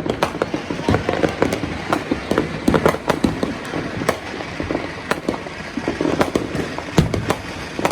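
Fireworks and firecrackers going off in a dense, irregular barrage of bangs and pops, the loudest about seven seconds in.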